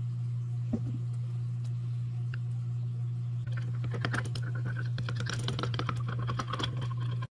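Metal spatula stirring colour into liquid soft-bait plastic in a glass measuring cup. From about halfway in it clicks and scrapes rapidly against the glass, over a steady low hum.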